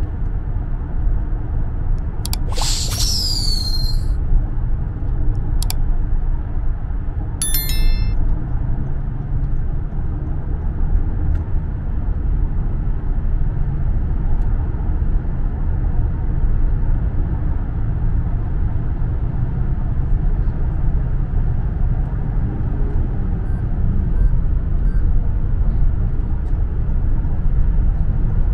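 Steady low rumble of road and engine noise heard inside a moving car's cabin. Near the start come a few sharp clicks, a bright swooping whoosh about three seconds in and a short bright chime about eight seconds in.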